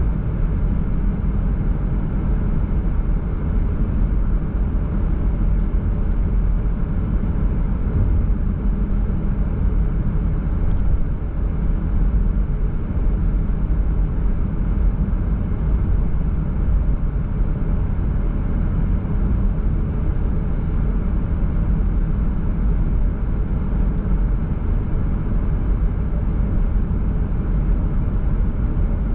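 A car driving at a steady speed, giving a continuous low rumble of tyres on the road and engine noise that doesn't change through the stretch.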